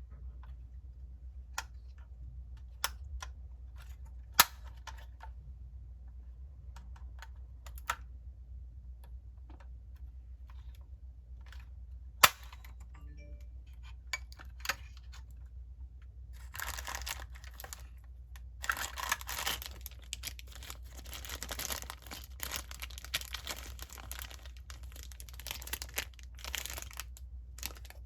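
Packaging of a die-cast model car being handled in an unboxing: scattered sharp clicks and taps, then from about halfway through a long stretch of crinkling and rustling, like plastic wrap or a blister pack being worked open.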